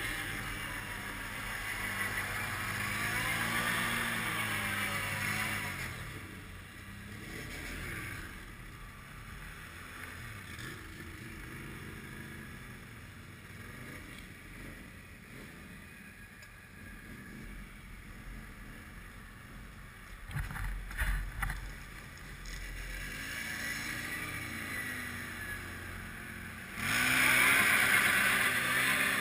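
ATV engines: a quad idles close by while another revs up and down in the first few seconds. There are a few sharp knocks about two-thirds of the way through, and near the end the close quad's engine revs up suddenly and loudly as it pulls away.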